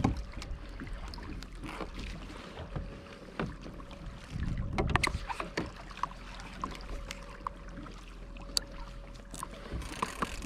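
Water sloshing and lapping against a fishing kayak's hull, with wind on the microphone and scattered light knocks. A louder rush of water comes about halfway through.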